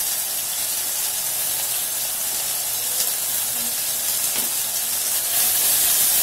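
Sliced onions frying in hot mustard oil in a pressure cooker, a steady sizzle. It grows a little louder near the end as the cooker is lifted and shaken to toss the onions.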